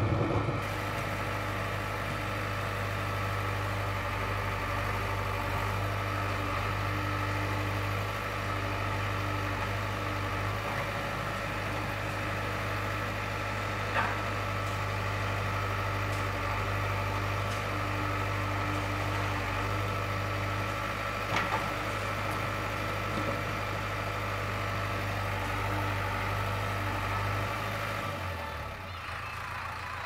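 A JCB 3DX backhoe loader's diesel engine running steadily while the backhoe arm digs soil, with two short sharp knocks partway through. Near the end the engine note changes and drops a little in level.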